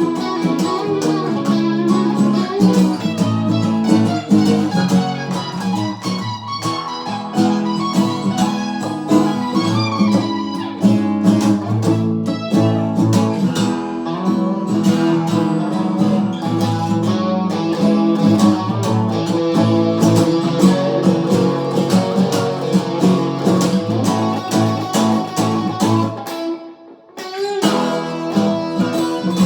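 Guitar jam: plucked and strummed guitar playing continuously, with a brief break in the sound near the end.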